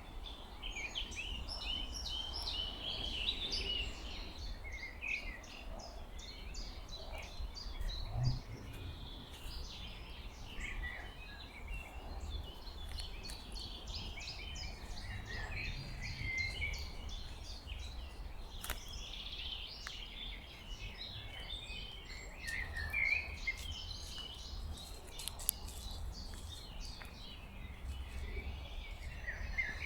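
Several songbirds singing at once: a dense chorus of quick chirps and trills, continuing without a break, over a steady low rumble.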